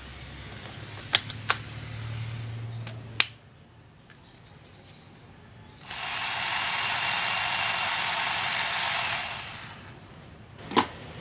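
Cordless drill of a five-in-one combo tool set run with no load for about three and a half seconds, starting abruptly and then dying away. A few sharp plastic clicks from handling the tool and its attachments come before the run and again near the end.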